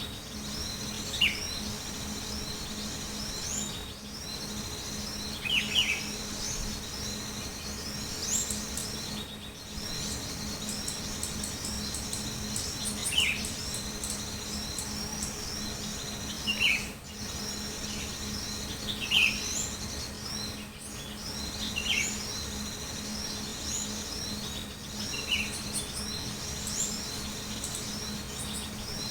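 Small songbirds twittering continuously in a high register, with a short, sharp falling call repeated every few seconds. A steady low hum runs underneath.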